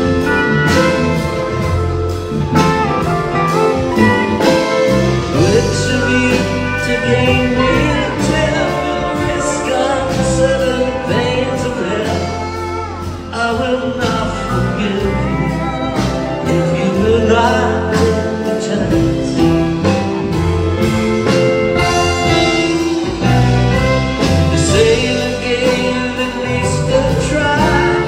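Live band music: acoustic guitar, electric bass and pedal steel guitar playing together, with gliding steel-guitar notes.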